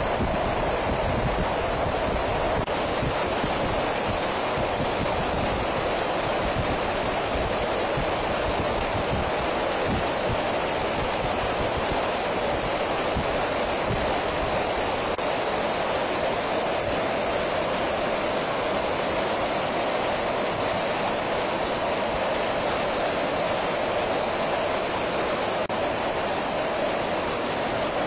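Steady rushing noise of an aircraft in flight, the jet engines and airflow heard from aboard, constant throughout.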